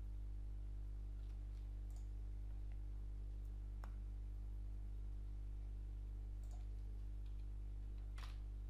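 A steady low electrical hum with a few scattered sharp clicks from a computer mouse and keyboard. The loudest click comes near the end.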